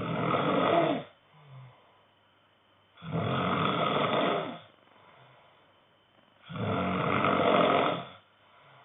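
A man snoring in his sleep: three long snores in an even rhythm, about every three and a half seconds, with near quiet between them.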